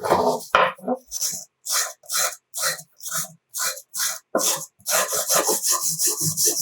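Hand strokes of an abrasive tool scraping rusty steel pincers, about two strokes a second, then a quicker run of strokes from about five seconds in.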